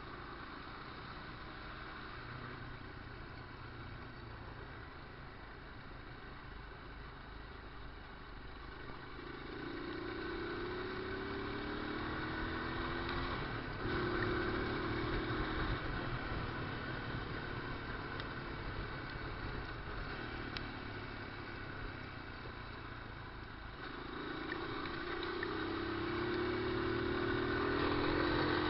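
Honda NX200 single-cylinder engine running under way, low and steady at first, then rising in pitch as the motorcycle accelerates about ten seconds in, dropping at a gear change, and rising again near the end.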